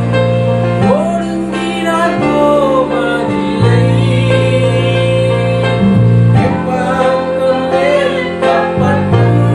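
Christian worship song: a voice singing over sustained instrumental accompaniment and a steady bass that changes chord every second or two.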